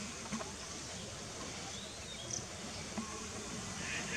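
Outdoor ambience: a steady faint hiss with a few faint, brief chirps about two seconds in.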